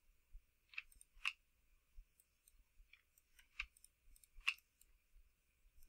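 Faint computer mouse clicks, about five spread over a few seconds.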